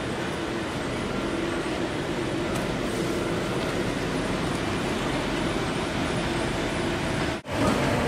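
Steady machinery noise of a plywood mill running, a continuous rumble with a faint hum, that drops out for an instant near the end.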